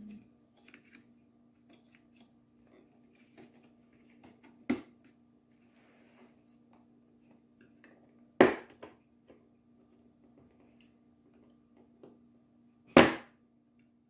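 Plastic retaining pins of an HP All-in-One's back shell snapping loose as the display assembly is pried free: three sharp cracks a few seconds apart, with faint handling clicks between.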